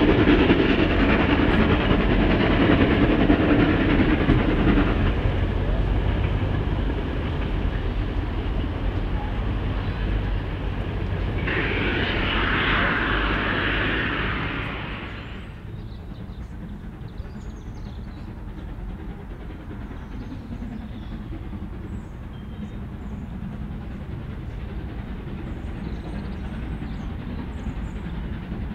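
Steam-hauled train of Travelling Post Office coaches pulling away, its exhaust and rolling rumble fading as it draws off, with a spell of loud hiss a little before halfway. After that comes a quieter, steady distant train rumble.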